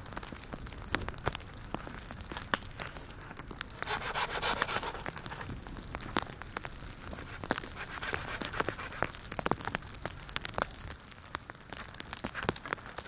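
Sticks and brush rustling, crackling and snapping as they are handled and worked, with scattered sharp clicks and a louder rustle about four seconds in.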